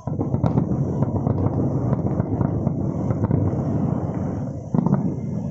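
Aerial fireworks bursting in a rapid volley: overlapping bangs and crackles over a continuous rumble, starting abruptly, with a louder bang near the end.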